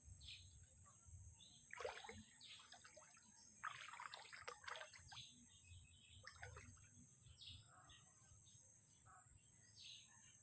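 Faint bird chirping: many short calls scattered throughout, busiest about two seconds in and again around four to five seconds in, over a steady high hiss.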